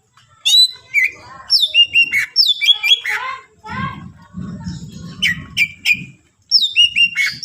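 Cucak ijo (green leafbird) singing loudly in a rapid run of sharp, downward-sweeping whistled notes, several a second with short breaks. A low rumble sits under the song for about two seconds in the middle.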